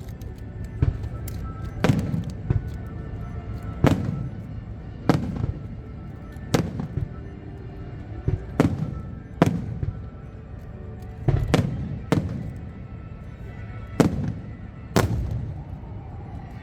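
Aerial fireworks bursting: more than a dozen sharp bangs at uneven spacing, roughly one a second, each ringing out briefly over a continuous low rumble.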